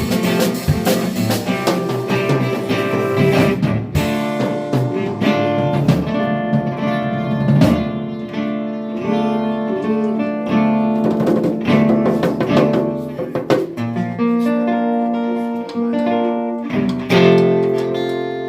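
Live band music led by guitar, with drum hits in the first few seconds.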